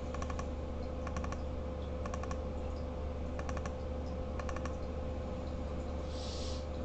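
Computer mouse double-clicking, five quick clusters of clicks every second or so, over a steady low electrical hum; a short hiss near the end.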